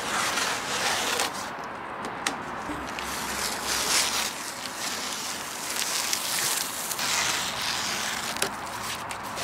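Masking tape being peeled off a car's window trim and paintwork after machine polishing: a run of uneven ripping pulls as the strips come away.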